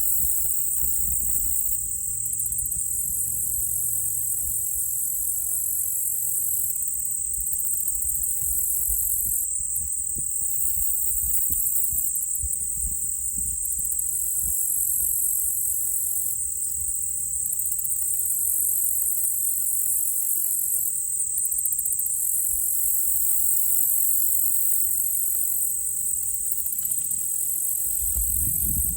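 A steady chorus of insects shrilling in a dense, high-pitched pulsing drone, with an uneven low rumble underneath that swells near the end.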